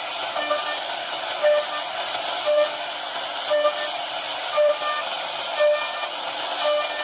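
CNC router cutting: a steady high cutting noise, with a short pitched whine about once a second as the bit repeats its pass.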